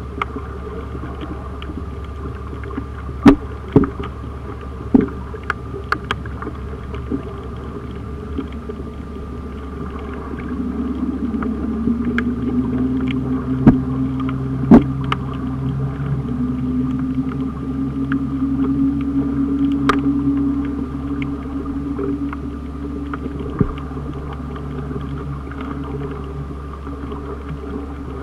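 Underwater ambience heard through a camera's waterproof housing: a steady low hum with loud, sharp clicks, a few in the first five seconds and two more about fourteen seconds in. From about ten seconds in a low engine drone comes up through the water, rising slightly in pitch, and fades away after about twenty-two seconds.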